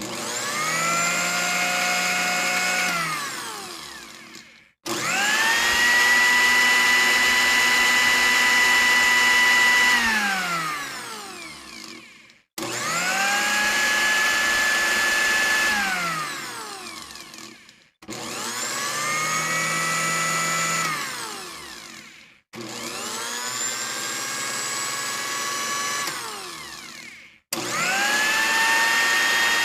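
Electric blender motor switched on and off six times. Each run spins up to a steady whine within about a second, holds for a few seconds, then drops in pitch as the motor coasts to a stop, followed by a brief silence before the next start.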